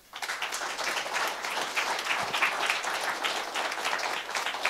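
Congregation applauding: a round of clapping that starts suddenly and holds steady.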